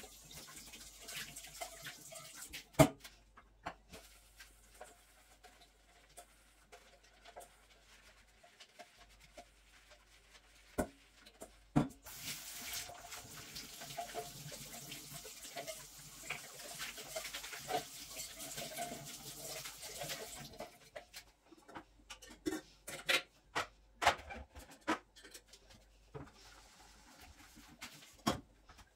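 Kitchen tap running into a sink for about nine seconds in the middle, with scattered sharp knocks and clatters before and after, the loudest about three seconds in.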